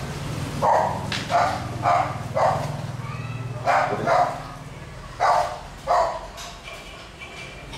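A dog barking off-screen: about eight short barks, mostly in pairs, each a sharp burst.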